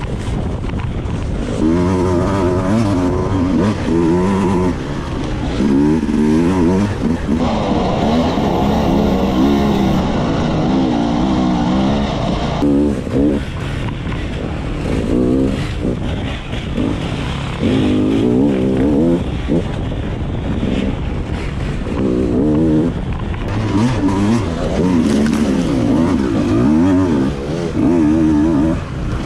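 Dirt bike engine being ridden hard, revving up and falling back in repeated surges of a second or two as the throttle is opened and closed.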